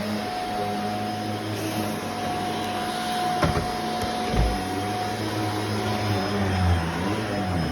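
Vacuum cleaner running steadily, its motor giving a constant whine over the rush of suction. Two low bumps come about three and a half and four and a half seconds in.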